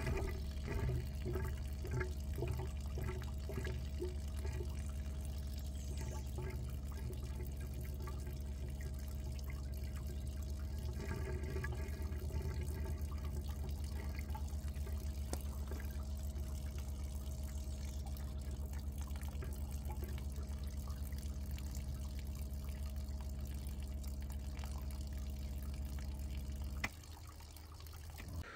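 Water from a hose running into a pop-up camper's fresh-water holding tank through its fill inlet, with small irregular drips and splashes. A steady low hum runs underneath and cuts off abruptly near the end.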